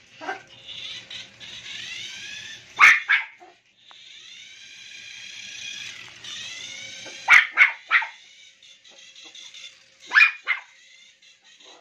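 Toy poodle giving sharp, loud yaps in short bursts: one, then three in quick succession, then two near the end. Under them, the high whine of a toy remote-control car's electric motor rises and falls in pitch as it speeds up and slows.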